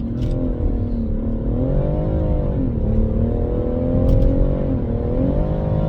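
BMW M140i's turbocharged straight-six under hard acceleration, its engine note rising and falling twice. Little turbo spool noise comes through despite the aftermarket MST intake.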